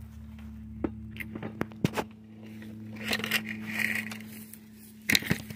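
Scattered sharp knocks and clicks, with a short stretch of rustling in the middle, from handling sticks and stepping over dry leaves and twigs; a steady low hum runs underneath.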